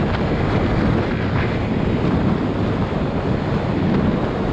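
Steady wind rush over the microphone of a camera on a moving motorcycle, with the bike's engine and road noise running underneath.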